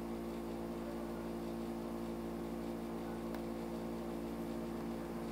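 Steady low electrical hum with a faint hiss: the background noise of the narrator's microphone recording, with no voice.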